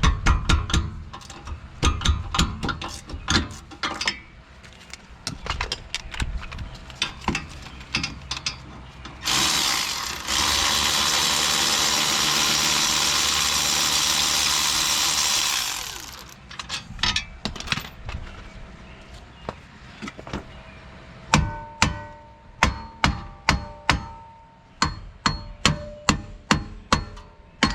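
Steel tools clinking and knocking on the car's rear hub. Then a power tool runs steadily for about six seconds, backing out the last hub bolt. Near the end comes a quick run of sharp hammer blows on the steel wheel hub, each one ringing, to knock the rear wheel bearing hub loose.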